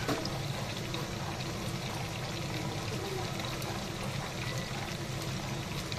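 Beaten egg poured in a thin stream into a wok of hot sweet-and-sour sauce while a wooden spatula stirs it, making a steady pouring and wet stirring noise.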